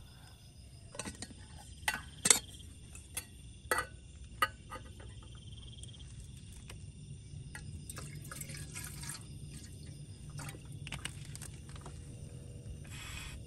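Plastic water bottle handled and water poured from it into a metal kettle on a portable gas stove, with several sharp clicks and knocks in the first few seconds.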